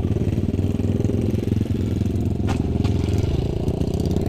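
A small engine running at a steady speed, with a rapid, even low firing beat. Two light clicks come about two and a half seconds in.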